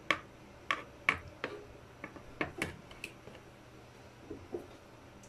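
Kitchen tongs clicking and tapping against a plastic tub while turning pieces of marinating milkfish: about eight sharp, irregular clicks in the first three seconds, then a couple of fainter ones.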